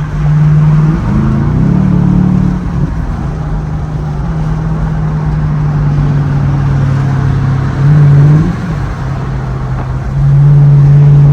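Camaro SS's L99 6.2-litre V8 pulling under throttle while driving. Its drone climbs in pitch about a second in and drops back, runs steady, climbs briefly again near eight seconds, then runs louder from about ten seconds.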